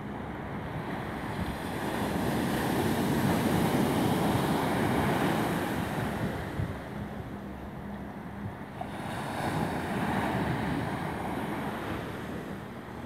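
Sea surf washing ashore with wind buffeting the microphone; the wash swells up twice, about two seconds in and again near ten seconds.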